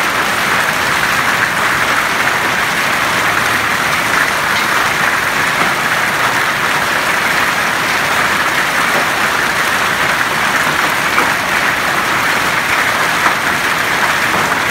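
Hail mixed with rain falling steadily, hailstones and drops striking the paved courtyard and grass in a loud, dense, even hiss.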